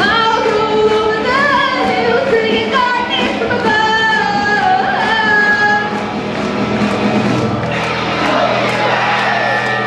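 Live rock band: a female lead vocal sung over electric guitar, bass guitar, keyboard and a Pearl drum kit keeping a steady beat. The accompaniment thickens into a denser wash of cymbals and guitars for the last two seconds.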